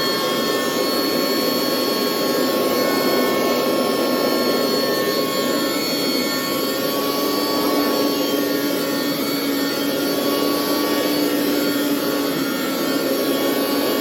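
Hoover upright carpet washer's motor running steadily under power with a high, even whine, just up to speed.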